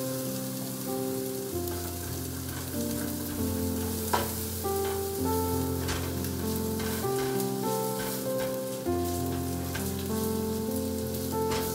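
Onion and ginger sizzling in hot oil in a nonstick frying pan, the first stage of a sauté before the garlic goes in, with a spoon stirring and clicking against the pan a few times. Background music with slow held chords and a bass line plays under it.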